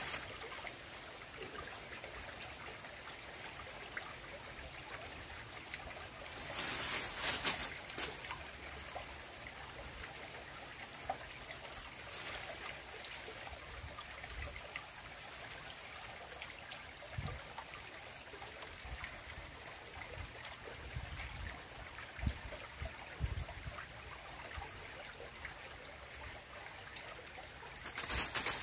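Small, clear stream trickling gently over rocks, a steady soft water sound, with a brief louder burst of noise about seven seconds in and another near the end.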